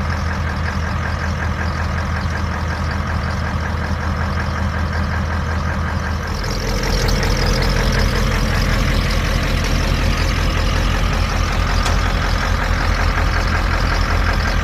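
Ford F-350 pickup's engine running steadily, growing louder and deeper about six seconds in, then holding that higher level.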